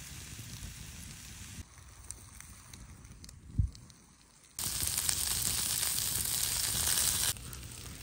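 Sucuk and cured beef slices frying in a pan over a wood fire: a loud, even sizzle for nearly three seconds past the middle that starts and stops abruptly. Around it, softer crackling of the campfire with a low rumble, and a single thump a little before the sizzle.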